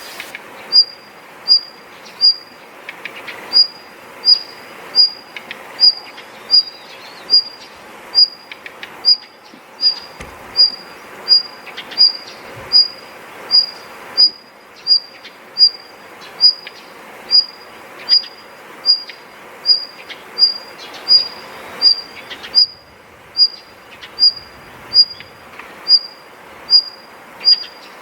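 A small songbird repeating one short, high note at a very even pace, about one and a half times a second, with faint chirps of other birds behind it.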